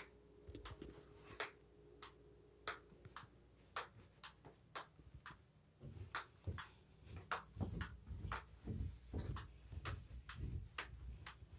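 Faint sharp clicks, two or three a second, from the recording tablet being handled, and from about halfway in soft thuds of footsteps as its holder walks.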